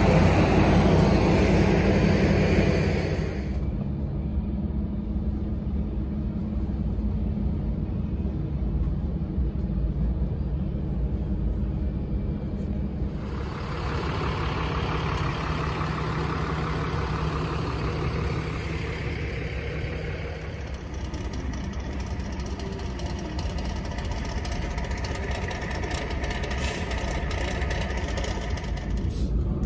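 Diesel engines of heavy silage-harvest machinery running steadily under load. Louder for the first few seconds, then a step down in level, with the engine noise picking up again about halfway through.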